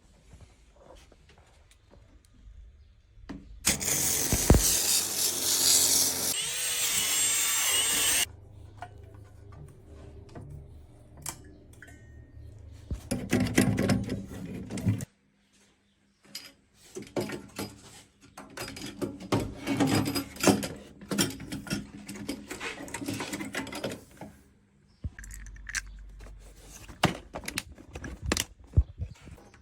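Work on a gas combi boiler being stripped for service, heard in short edited clips. About three and a half seconds in, a loud steady machine noise runs for several seconds and cuts off. After that come clattering, knocking and scraping of tools on metal boiler parts.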